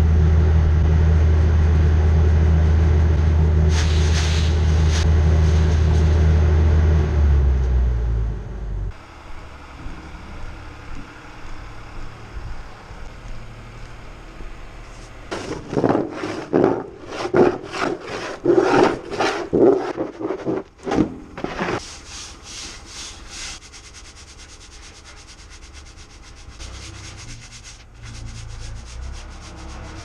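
A machine runs with a steady low hum, then cuts off about eight seconds in. Later comes a quick run of scraping strokes: a metal shovel scraping dried silage residue off the concrete wall of a silo.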